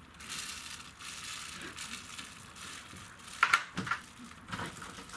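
Plastic bag or packet crinkling and rustling as it is handled, with a few sharper, louder crackles about three and a half seconds in.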